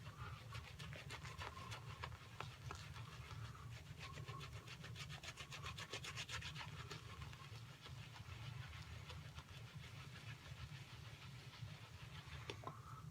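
Synthetic shaving brush scrubbing tallow-soap lather on the face: a faint, quick, even bristly swishing, busiest in the middle, as extra water is worked into the lather to hydrate it.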